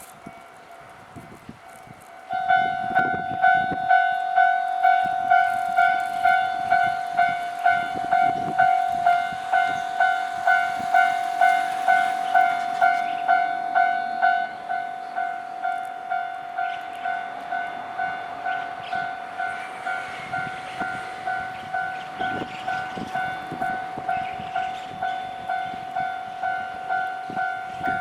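Japanese level-crossing warning bell ringing, a two-tone electronic ding repeating about twice a second. It starts suddenly a couple of seconds in and is loud at first, then drops to a lower volume about halfway through and keeps ringing.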